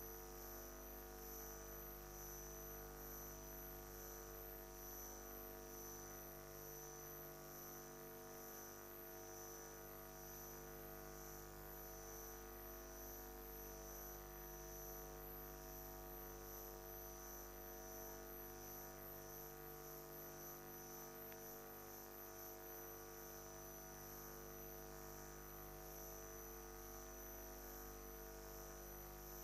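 Faint, steady hum of several held tones with a soft, regular pulse, close to silence.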